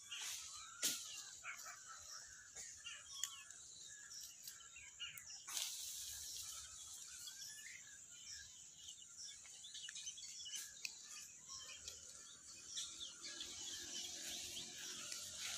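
Faint outdoor background of many small birds chirping, over a steady high hiss, with two sharp clicks, one about a second in and one about a third of the way through.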